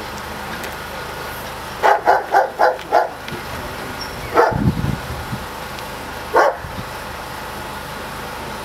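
Dog barking: a quick run of five barks, then two more single barks, over a steady background hum.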